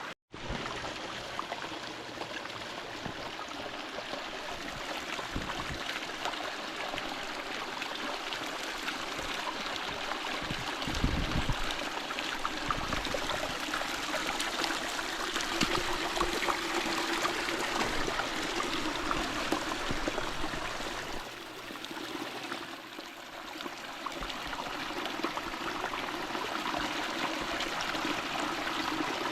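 Small creek running over rocks, a steady rush and trickle of water, with a few low thumps about eleven seconds in.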